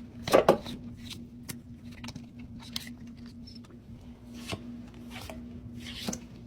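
Pokémon trading cards being handled and flipped through one by one: a scatter of soft clicks, taps and slides of card on card.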